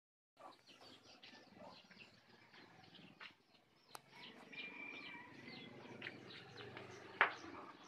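Birds chirping, many short quick calls, faint. A low steady hum comes in about halfway, with a click near four seconds and a sharp knock about seven seconds in, the loudest sound.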